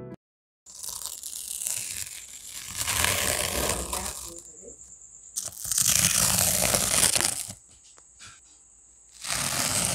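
Masking tape being peeled off the edges of a painted canvas, in three long tearing pulls with crinkling as the tape is handled.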